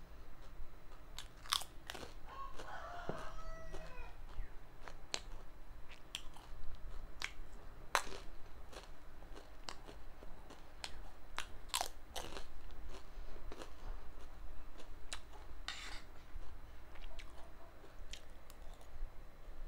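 Close-miked crunching and chewing of Kurkure chatpate, a spicy Nepali snack mix of Kurkure, nimki, crisp instant noodles and chips, in a string of sharp, irregular crunches.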